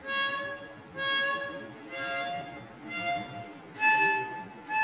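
Pink plastic toy trumpet blown in a string of short toots, about one a second. The pitch steps higher over the last few, and the toot about four seconds in is the loudest.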